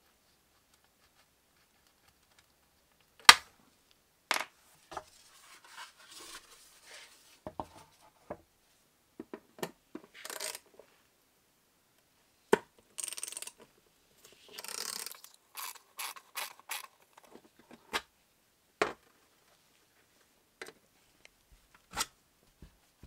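Scattered sharp metallic clicks and taps with short bursts of scraping and rustling as small parts of a sheet-metal game board are handled, with needle-nose pliers working a pin at the rim. The loudest click comes about three seconds in.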